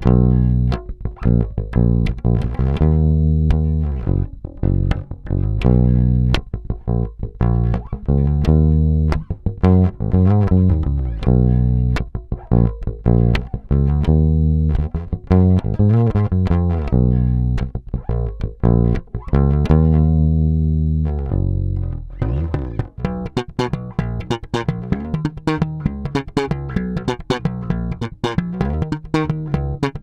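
Fender Deluxe Active Precision Bass Special electric bass played fingerstyle: a bass line of sustained low notes that turns into faster, busier playing about twenty seconds in.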